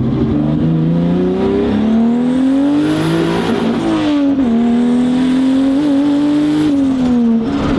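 Turbocharged BMW E30's 2.5-litre M20 straight-six with an HX40 turbo, accelerating hard under full throttle, heard from inside the cabin. The revs climb for about four seconds, drop with an upshift, hold in the next gear, then fall as the throttle is lifted near the end. A faint high whine rises and falls with the revs.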